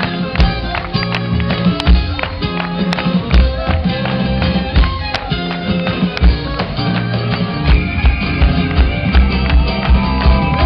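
A live band playing amplified music with a steady beat, with electric bass guitar prominent in the low end.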